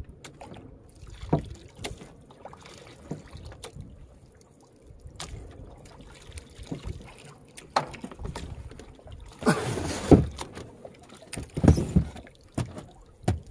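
Handline fishing from a small outrigger boat: scattered knocks and thumps on the hull as the line is handled. A louder burst of noise with knocks comes about ten seconds in, and heavy thumps follow near the end.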